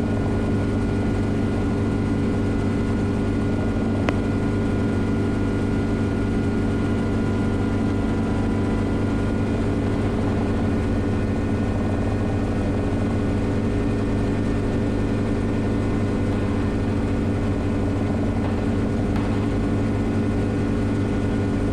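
Schweizer 300CB helicopter in flight, heard from inside the cockpit: its four-cylinder piston engine and rotor keep up a steady, even drone. One faint click comes about four seconds in.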